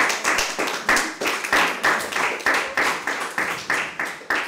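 Audience applause: a small group clapping, sharp claps at about three a second.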